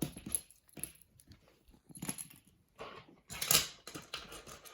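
Plastic fidget toys being handled and set down: a run of short, irregular rustles and clicks, the loudest about three and a half seconds in.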